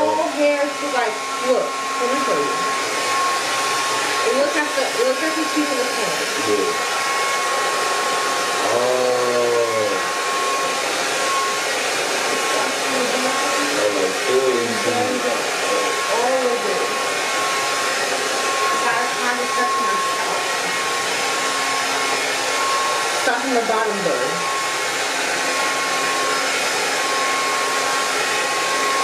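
Handheld hair dryer running continuously while blow-drying hair: a steady rush of air with a constant high whine.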